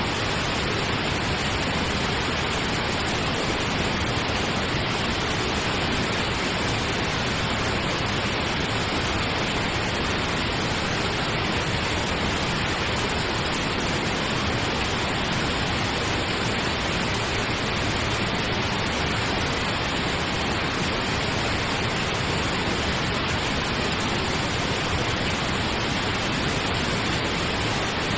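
Steady pink noise: an even, unchanging hiss spread across the whole range from low to high.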